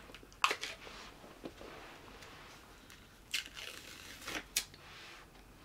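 Pint ice cream carton being handled and opened: soft crinkling with a few sharp clicks of the lid and packaging.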